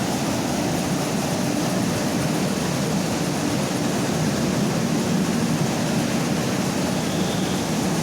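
Mini rice milling machine running steadily, an even mechanical noise.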